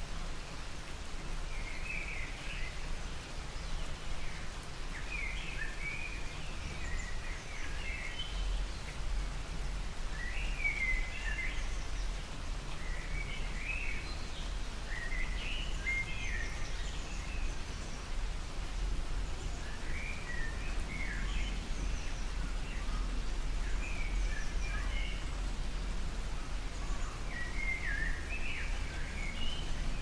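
Light rain falling steadily, with a bird's short chirping phrases every couple of seconds and a low rumble underneath.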